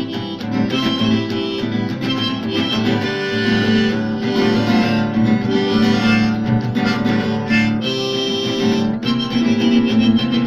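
Harmonica, played from a neck rack, taking an instrumental solo over a guitar accompaniment.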